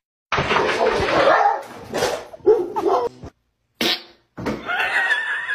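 A dog barking at its own reflection in a mirror, lunging at it. After a short silence, a thin, wavering high-pitched sound follows for about a second near the end.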